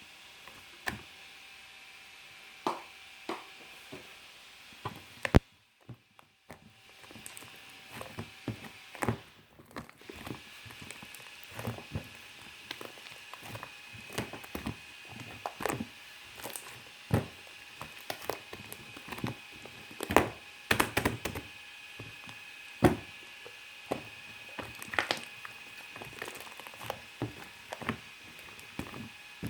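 Shaving-foam marbled slime being pressed and poked by hand, its trapped air bubbles popping in irregular sharp clicks and cracks, a few much louder pops among them. The slime is still full of air and has not yet deflated.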